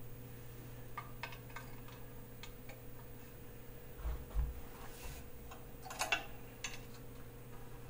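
Scattered light metallic clicks and taps as steel T-nut locators are fitted into the holes of an aluminum fixture plate on a CNC mill table. There is a dull thump about four seconds in, and the loudest clicks come around six seconds. A steady low hum runs underneath.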